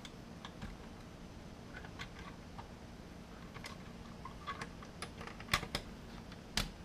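Scattered light clicks and taps of hands handling an Intel NUC mini PC and fitting its bottom cover onto the case, with a few sharper clicks near the end.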